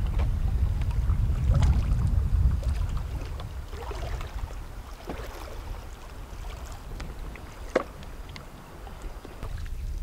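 Bamboo raft being poled on a river: water lapping and sloshing around the raft, with wind rumbling on the microphone for about the first three seconds. Scattered light knocks of bamboo come throughout, with one sharper knock near the end.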